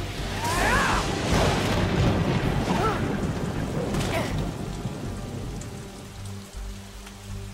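Heavy rain with a dramatic music score. The first few seconds carry a loud, noisy burst of action with a few short rising yells, then it settles to steady rain and a low sustained drone.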